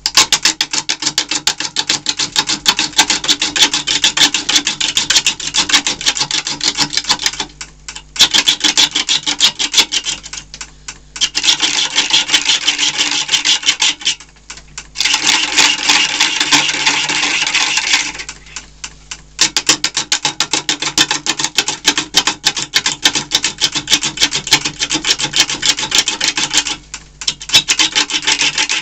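Bowl gouge roughing down a wobbling, off-centre green-wood blank on a wood lathe under heavy pressure. The tool cuts with rapid ticking as the uneven wood strikes its edge, in passes of a few seconds with short breaks where the cut is lifted. The lathe motor hums steadily underneath.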